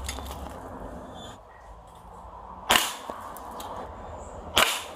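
Two shots from a CO2-powered pellet airgun, each a single sharp crack, the first a little past the middle and the second about two seconds later near the end.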